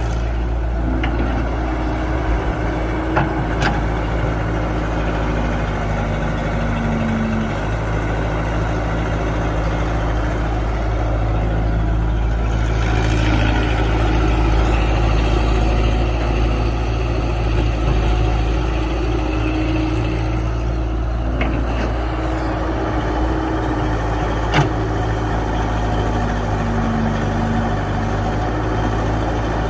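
Excavator's diesel engine running steadily while it digs, with tones above the engine hum that rise and fall as the machine works. A few sharp knocks stand out, one about three seconds in and a louder one near the end.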